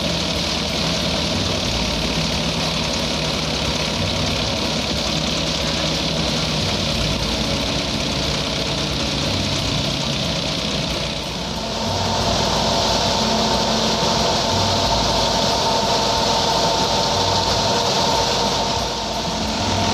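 Tractor-powered wheat thresher running steadily: the tractor engine and the thresher's spinning drum and belts, with a hiss from the wheat being fed in. About halfway through, the sound gets a little louder and a higher whine joins it.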